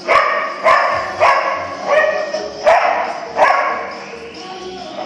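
Border collie barking six times in a row, about two-thirds of a second apart, each bark loud and fading quickly.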